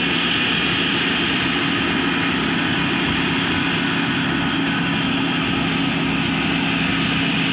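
Kaset Pattana 'Ngoen Mee' rice combine harvester with its Hino engine running steadily under load as it cuts and threshes rice, a constant engine hum with machinery noise over it.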